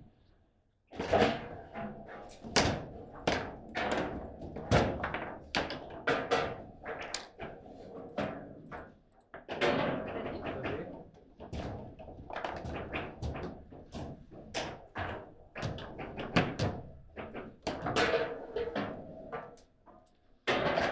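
Table football rally: rapid, irregular knocks and clacks as the ball is struck by the rod-mounted player figures and bangs off the table walls, with a short lull about nine seconds in.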